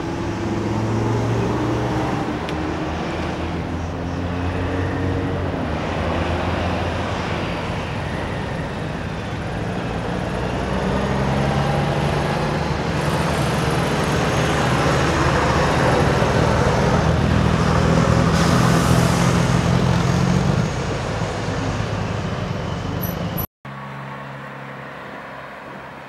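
Diesel semi-truck engines running as big rigs drive slowly past one after another, a steady low drone that grows louder in the middle and then fades. Near the end it cuts off suddenly and quieter traffic noise takes over.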